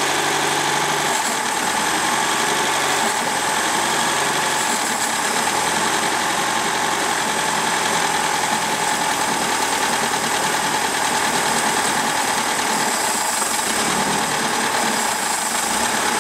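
Boat's inline-four 3.0-litre engine running steadily at fast idle while fogging oil is fed through its carburetor. The owner thinks the engine has a slight bottom-end noise.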